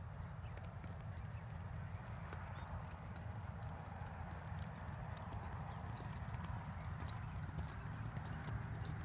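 Hoofbeats of a two-year-old gray horse moving around a soft, harrowed dirt arena under a rider, over a steady low rumble.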